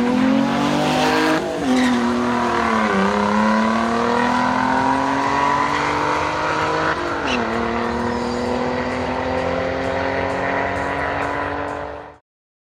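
A combustion-engined car accelerating hard down a drag strip: the engine note climbs steadily and drops back at three upshifts, about a second and a half, three seconds and seven seconds in. The sound cuts off suddenly near the end.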